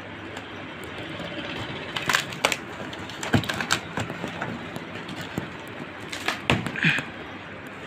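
Cardboard shipping box being torn and pulled apart by hand: a run of sharp crackles and rips from about two seconds in until near the end, over a steady background noise.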